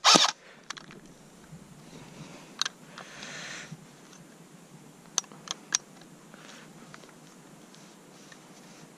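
Airsoft Sten gun being handled: a short loud burst right at the start, then a few scattered sharp clicks and a brief rattle of its parts as it is turned over and worked by hand.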